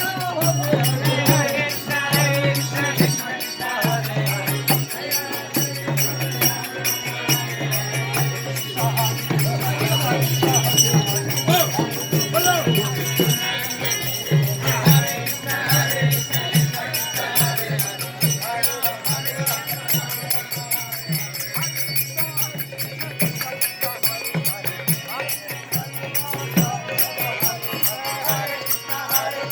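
Devotional kirtan-style music with steady jingling, rattling percussion over low sustained notes.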